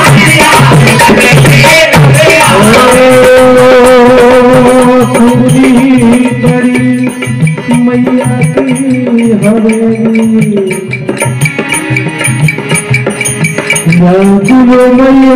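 Live Hindi devotional bhajan music: long held melody notes that step between pitches, over hand-drum strokes and jingling rattle-like percussion. The accompaniment thins out for several seconds in the middle, then comes back in full near the end.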